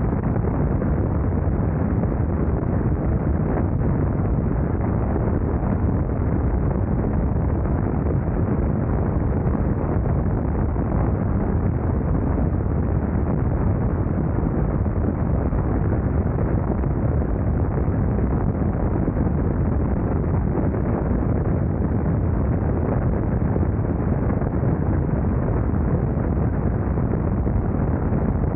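BMW R nineT Scrambler's air-cooled boxer twin running at a steady road speed, mixed with wind rushing over the microphone.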